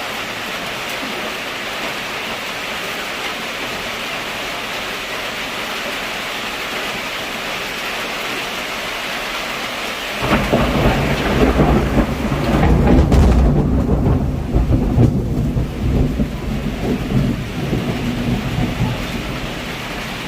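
Heavy rain falling steadily. About halfway through, thunder breaks in suddenly with a long, deep rumble that peaks a few seconds later and keeps rolling under the rain.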